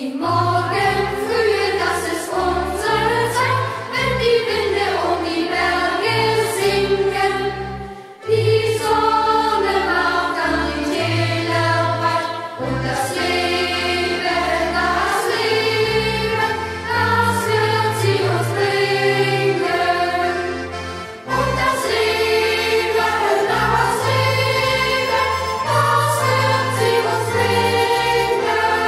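A youth choir singing a German hiking song in chorus, with short breaks between lines about 8 and 21 seconds in.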